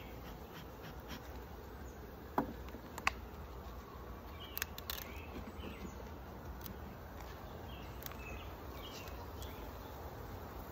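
Honeybees buzzing as a steady hum around an open hive. Two sharp knocks come a little over two seconds in, followed by a few lighter clicks of wooden hive parts being handled.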